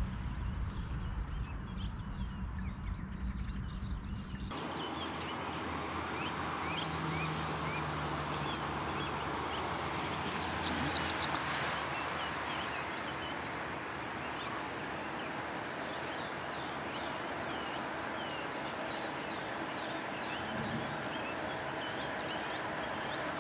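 Countryside ambience: many short bird chirps over a steady high insect trill. A low rumble in the first few seconds cuts off abruptly.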